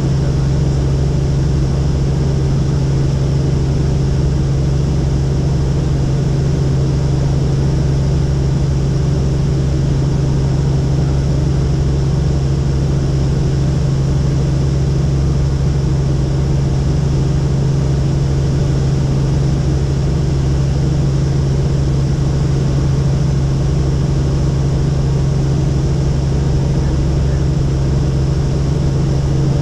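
Helicopter in flight: a loud, steady drone of engine and rotor, with a strong low hum that holds one pitch throughout.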